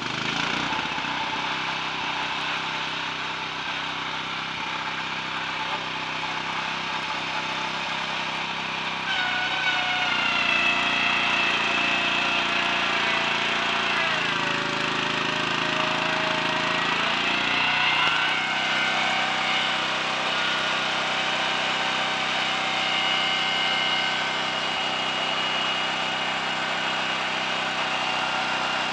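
Small petrol engine on a wheeled trolley running steadily, driving a motorcycle's front wheel at high speed to lap the high spot out of its drum brake with fine grinding paste on the shoes. About nine seconds in a whine from the spinning wheel joins and the sound gets louder. The whine dips in pitch for a few seconds as the brake is pulled on, then rises again.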